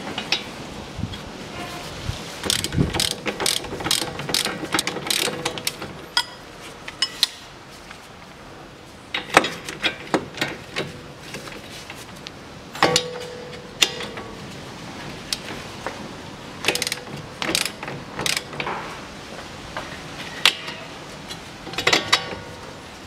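Ratchet wrench with a 22 mm socket clicking in several bursts with pauses between, as it is swung back and forth to undo the bolts that hold the strut to the steering knuckle.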